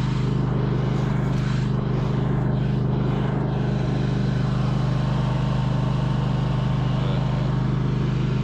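Engine of a snow-clearing machine running at a steady speed, a constant low drone that holds without change.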